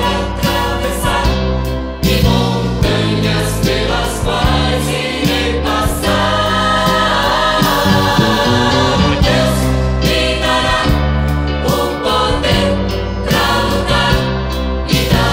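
Mixed gospel choir singing a hymn in Portuguese, with instrumental backing and sustained bass notes.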